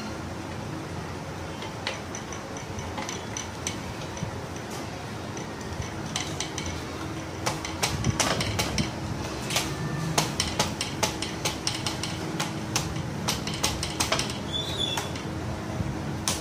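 Metallic clinks and knocks as the gearbox casing of an old Royal Enfield Bullet is worked onto the engine's mounting studs. The clinks are sparse at first and come thick and fast from about halfway through, over a steady background hum.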